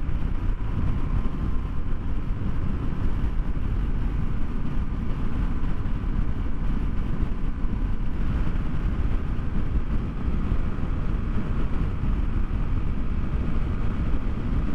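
A large Scrambler motorcycle being ridden on the road: its engine runs steadily under a constant low rush of wind over the microphone.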